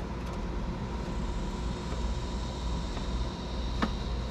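Steady low background rumble with a faint steady whine, and one sharp click near the end as a plastic drawer fitting is handled.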